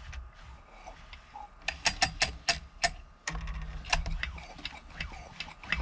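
Recoil starter of a Husqvarna 257 chainsaw being pulled with the spark plug out, the engine turning over without firing. There are quick mechanical clicks, and a low whirr with further clicks about three seconds in.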